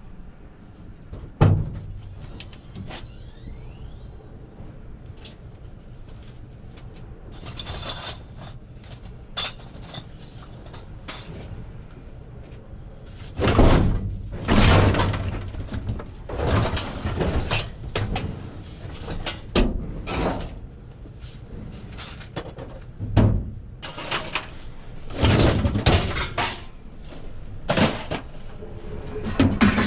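Scrap metal clattering and crashing as pieces are thrown out onto a pile, with one knock early and then a long run of loud irregular metal impacts from about halfway through, over a steady low rumble.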